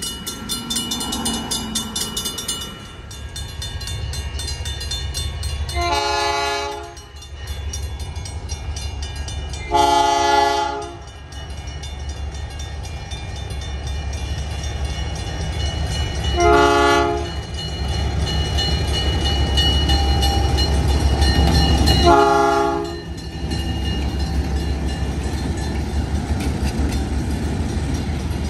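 Diesel locomotive sounding its air horn in a long, long, short, long pattern, the grade-crossing signal, over the steady low rumble of its engine.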